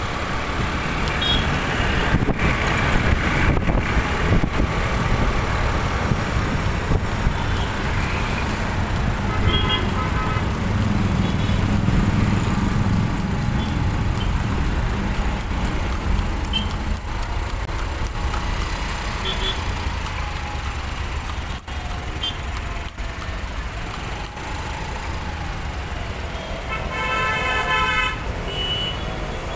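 Busy road traffic: a steady rumble of engines and tyres, with vehicle horns honking briefly about a third of the way in and a longer horn near the end.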